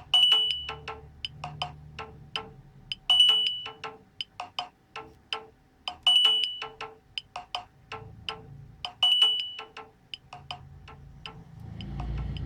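A Nokia 6131 ringtone playing from the phone's speaker: a quick run of short, clicky notes that loops about every three seconds. Each loop opens with a held high note, the loudest part of the tune. A low rumble comes in near the end.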